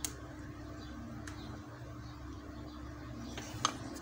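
A single sharp click as a plug is pushed into a smartphone's port, over a low steady hum; two fainter clicks follow about three and a half seconds in.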